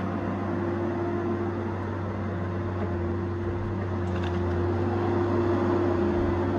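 Tigercat 870C feller buncher's diesel engine running steadily with a constant hum, growing a little louder near the end.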